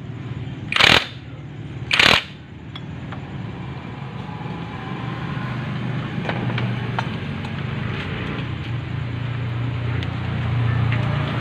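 Two short bursts from a cordless impact driver working at the clutch housing nut of a Honda XRM110, about one and two seconds in. After that, a steady low engine hum of a running motorcycle fills the rest, growing a little louder near the end.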